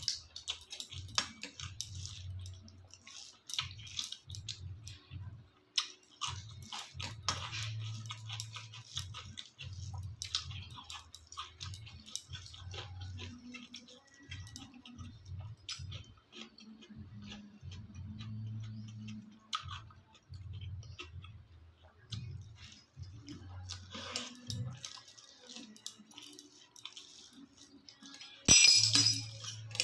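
Close-up eating sounds: chewing and mouth smacks with repeated low thuds, and small clicks of food and dishes. A louder, sharper burst comes near the end.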